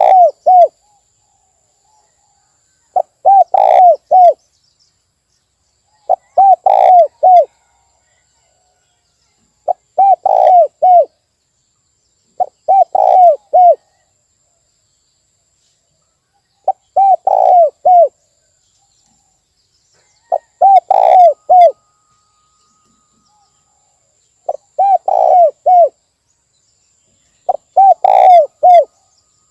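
Spotted dove (tekukur) cooing: a short phrase of four or five low coos, repeated about every three to four seconds with silence between.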